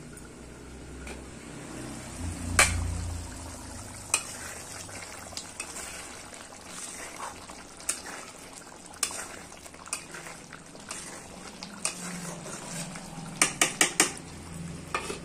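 Metal utensils clinking against an aluminium kadai and its lid, in scattered sharp taps, with a quick run of four taps near the end as a spoon stirs the chickpea curry. A faint steady simmer lies underneath.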